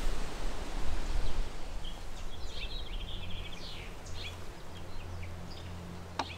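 Outdoor ambience: a small bird chirping a few times, with a quick trill about two seconds in, over a low steady hum. The first second and a half holds a broad rustling noise.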